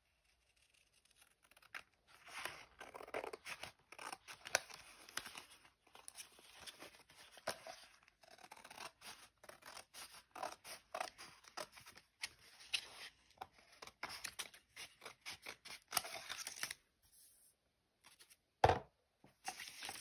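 Scissors cutting through a magazine's paper cover in a long run of short snips, starting a couple of seconds in. Near the end comes one brief, louder sudden sound.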